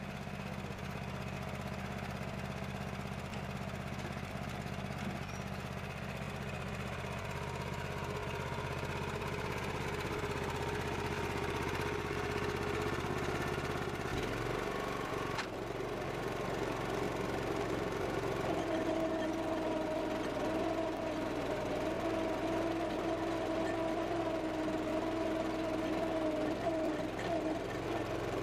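Small gasoline engine of a walk-behind chain trencher running steadily. About halfway through its note changes and settles into a steadier, higher hum as the digging chain goes back into the ground.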